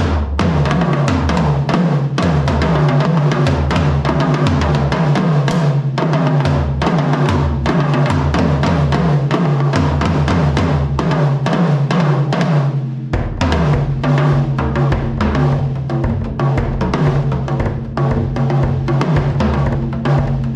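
DW LowPro travel drum kit played in a continuous groove with fills, kick drum and toms to the fore; its short shells have no resonant heads. Recorded through a camera's built-in microphone, the beat changes about two-thirds in.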